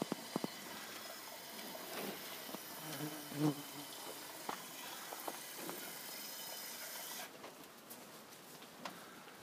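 Cows in a pasture: scattered small knocks and shuffles over a steady hiss, with one brief low sound about three and a half seconds in.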